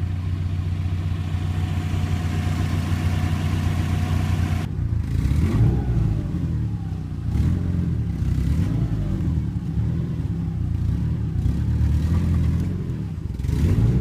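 Subaru Forester's flat-four engine running steadily under load, then revving up and down repeatedly from about five seconds in while it drags a boat on a rope.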